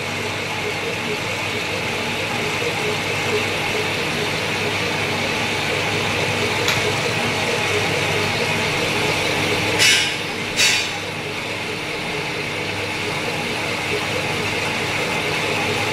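A lathe running with a steady mechanical hum. Two short hissing bursts come about ten seconds in.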